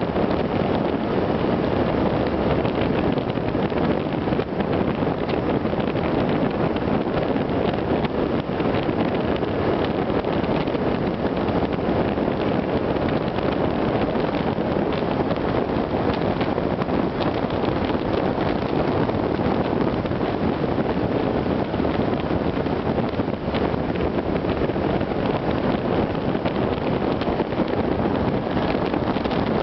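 Steady wind rush over the microphone of a camera mounted above a Suzuki Gladius 400 motorcycle's windscreen at riding speed, mixed with the bike's running engine.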